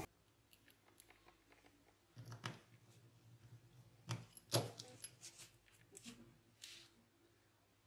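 A few faint, scattered clicks and knocks over near silence, the loudest about two seconds in and again around four and a half seconds in.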